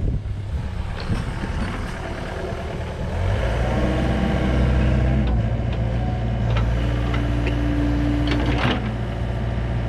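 Excavator's diesel engine running, then revving up under load about three seconds in as digging begins, with a steady whine and a few sharp knocks in the second half.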